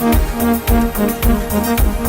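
Background music: an instrumental electronic track with a steady beat and sustained melodic notes.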